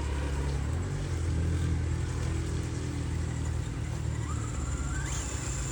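1/10-scale RC off-road car's electric motor and gearbox whining, the whine rising sharply in pitch near the end as the motor speeds up, over a steady low rumble.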